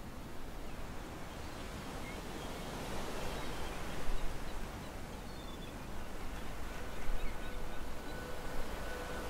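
Outdoor ambience, a steady hiss with a few faint bird chirps. A held musical tone fades in during the last couple of seconds as the music begins.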